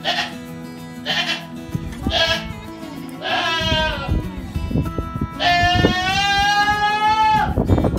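Chickens calling: a string of short, arching squawks about a second apart, then one long drawn-out call that holds a steady pitch for about two seconds near the end.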